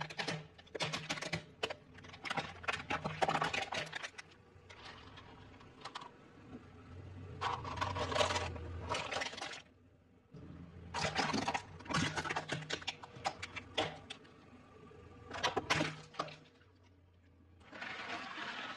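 A car tyre rolling over and crushing hard plastic toy vehicles: several bursts of cracking and crunching plastic, each lasting a second or two with short pauses between, over a low hum.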